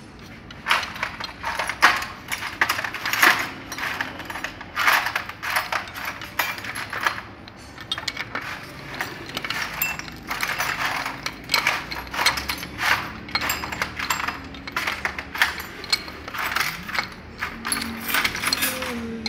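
Adjustable wrench clinking and scraping against the steel fitting and housing of a Toyota Kijang power-steering rack as it is turned in short strokes and regripped: an irregular run of sharp metallic clicks and clanks.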